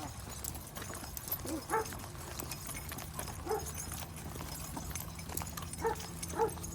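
A pack of dogs walking on leads: steady footsteps and clicking of paws, tags and leashes. Four short, pitched whines from a dog come through, the last two close together near the end.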